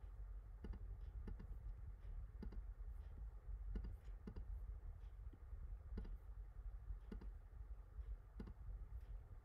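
A dozen or so faint, irregular clicks of a computer mouse, over a steady low hum.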